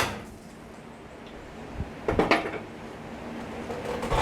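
Sharp metallic click, then a short clatter of knocks a little past two seconds in, as hand tools and light-mounting parts are handled.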